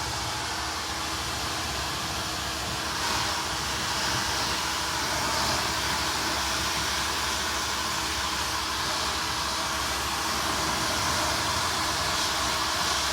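High-speed brushless hair dryer running: a steady rush of blown air with a faint steady hum, getting a little louder about three seconds in.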